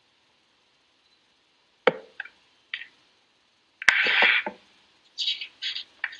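Handling noise at a laptop microphone: after a quiet start, a few sharp clicks and knocks about two seconds in, a louder knock with a short rustle just before four seconds, then brief hissing rustles.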